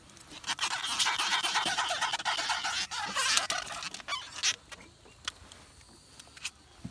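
Wet rustling and scraping in the bottom of a wooden boat for about three seconds, with many sharp clicks, then a few scattered knocks.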